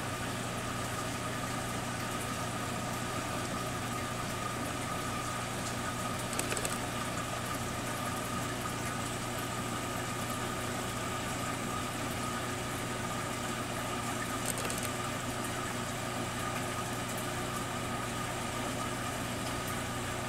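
Steady electric hum of an aquarium air pump running a sponge filter, with a couple of faint ticks about a third and two thirds of the way through.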